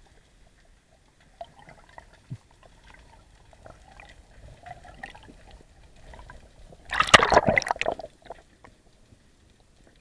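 Underwater bubbling and gurgling heard through a camera housing: scattered faint clicks, then a loud burst of bubbles lasting about a second, about seven seconds in.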